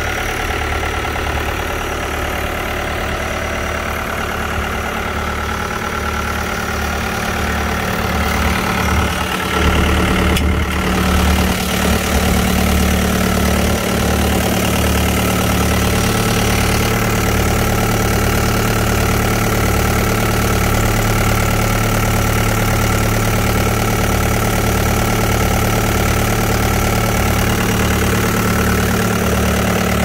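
Cat 287C compact track loader's diesel engine idling steadily, growing louder about ten seconds in.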